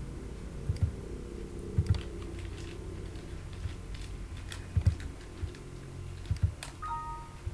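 Scattered, irregular clicks of a computer keyboard over a steady low hum, with a short two-note electronic tone, higher then lower, near the end.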